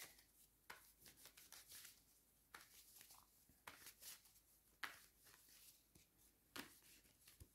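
Near silence: quiet room tone with a few faint, short clicks and rustles scattered through it.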